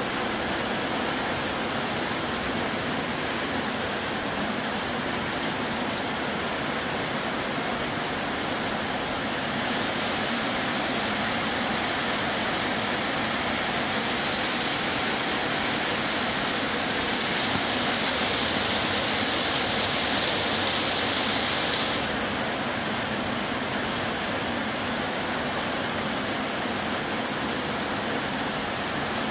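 Heavy tropical downpour pouring steadily, a dense, even hiss of rain. About ten seconds in a higher hiss joins it and grows stronger, then drops away sharply about two-thirds of the way through.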